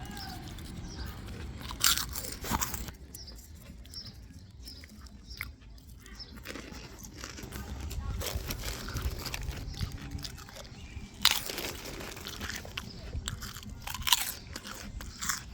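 Chewing and biting on something crunchy, with a few sharp crunches scattered through, over a low background rumble.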